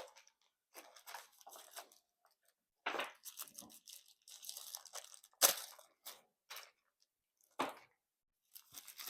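Plastic and cardboard packaging crinkling and rustling in short, irregular bursts as dash cam parts are unpacked by hand, with two sharp knocks in the second half.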